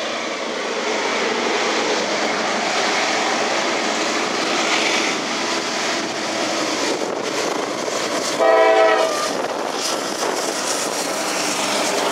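Diesel freight locomotive and empty coal hopper cars rolling out of a tunnel with a steady running noise, and one short horn blast a little past the middle.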